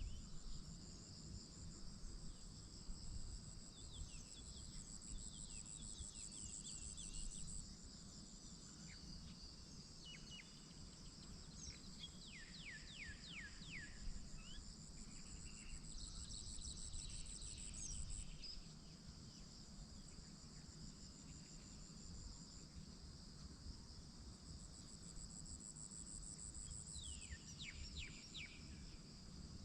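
A steady chorus of insects trilling high and fast, swelling and fading in pulses. A few birds call in quick falling chirps about midway and again near the end, over a low steady rumble.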